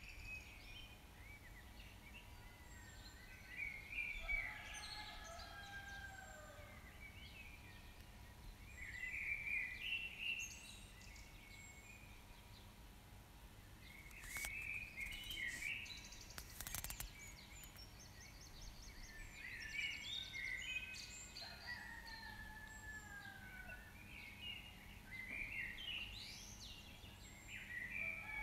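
Birds calling outdoors in short bursts of chirps and gliding notes every few seconds, over a steady low background rumble. A few sharp clicks come near the middle.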